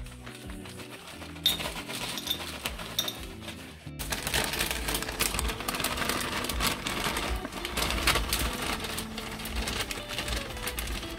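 Background music over light clicking and rustling. The sound turns fuller and busier about four seconds in.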